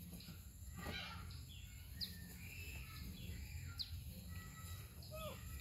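Faint bird chirps: a few short, high, falling notes spaced a couple of seconds apart, and a short rising call near the end, over a low steady background rumble.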